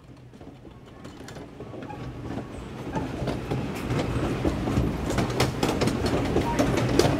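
Log flume ride running: a steady mechanical clatter with many small clacks, rising over the first three seconds and then holding at full loudness.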